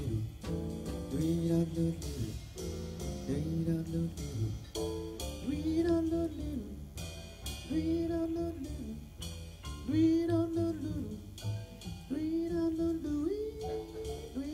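Live jazz quartet: a male singer holds long, bending notes over piano, double bass and drums.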